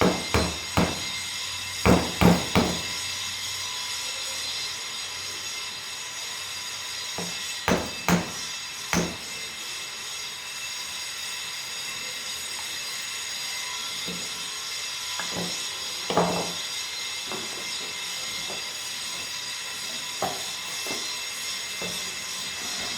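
Scattered sharp knocks and clunks from objects being handled, several in quick succession at the start, three more about eight seconds in, and single ones later, over a steady hiss with a faint whine.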